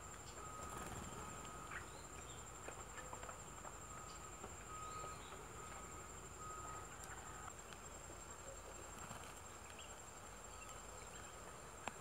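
Faint insect drone, a steady high-pitched buzz that never stops. A lower, steady tone comes and goes in short stretches during the first seven seconds, with a few faint ticks.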